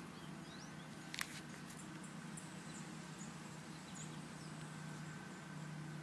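Faint suburban ambience: a steady low hum with a thin steady high tone, brief high bird chirps scattered through it, and one sharp click about a second in.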